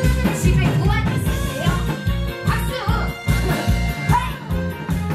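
Korean trot song performed live over a PA: a woman singing into a microphone over a backing track with a steady beat, about two strong beats a second, with live drums played along.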